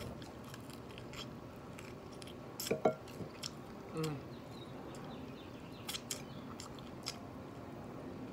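A person chewing a mouthful of rice and fried pork ribs eaten by hand, with scattered lip smacks and mouth clicks and two short hums near the middle.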